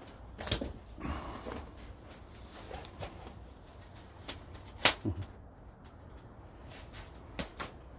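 Wood fire crackling: a few scattered sharp pops, the loudest about five seconds in.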